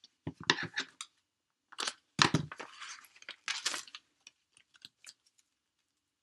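Die-cut paper scraps crackling and rustling as they are handled and pulled apart, in two spells of about one and two seconds, followed by a few light ticks.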